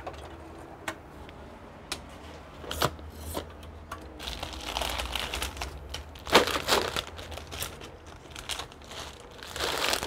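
Plastic crinkling and rustling as a tray of RAM modules and a plastic bag are handled, with several sharp clicks and knocks; the loudest knock comes about six seconds in.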